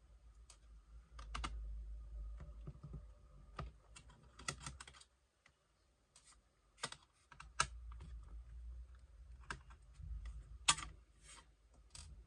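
Irregular light clicks and taps of a tool and small metal parts as the laptop's metal heatsink is taken off the CPU. There is a low handling rumble under it, and a short quiet pause about halfway.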